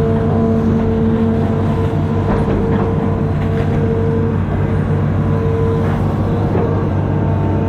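Amphibious excavator's diesel engine running steadily under load, with a low hum, a steady whine above it and a few faint knocks in the middle.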